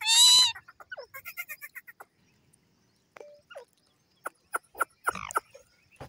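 Indian ringneck parakeet giving one loud, shrill call at the start, followed by a quick run of soft chirps and clicks. A few more short, sharp calls come near the end.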